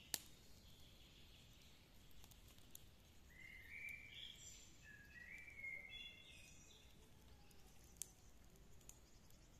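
Songbird singing in woodland: two short phrases of clear whistled notes stepping upward in pitch, about three and five seconds in, over a faint steady hiss. Two sharp clicks, one at the very start and one about eight seconds in.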